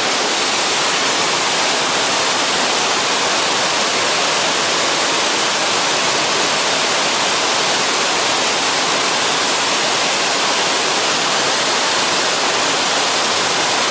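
Waterfall rushing close by: a steady, loud, even roar of falling water.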